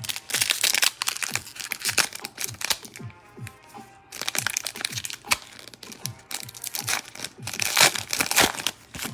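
Foil wrapper of a football trading-card pack being torn open and crinkled in the hands, in three long stretches of crackling, over background music with a steady beat.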